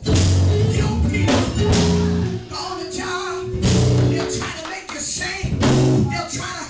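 Live church band playing loud, driving music with drum hits and a pulsing bass line.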